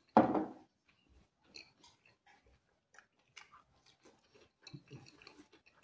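A person chewing pizza, with many small wet smacks and crunches of the crust. There is one louder short knock or thud just after the start.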